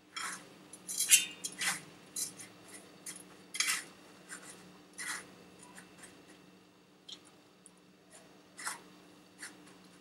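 Dry breadcrumbs rustling and scraping against a stainless steel plate as a hand rolls and presses a batter-coated macaroni cheese ball in them: irregular short, scratchy strokes, with a faint steady hum beneath.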